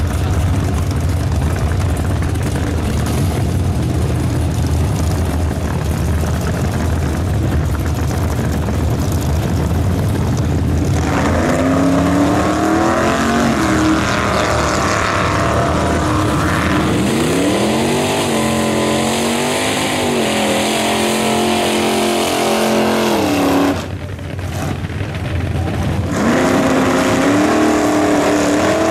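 Gasser drag cars' engines running at the starting line, then launching and accelerating hard down the strip, the engine pitch climbing and dropping with each gear change. After a short break near the end, another engine revs up.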